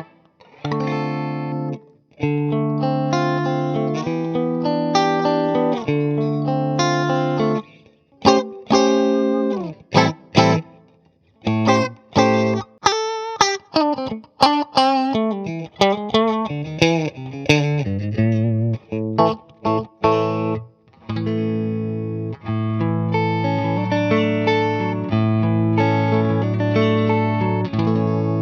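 Electric guitar played through a Boss IR-2 amp and cabinet simulator on its Boss amp preset. It opens with ringing chords, moves to a single-note lead line with string bends and vibrato, and closes on chords again.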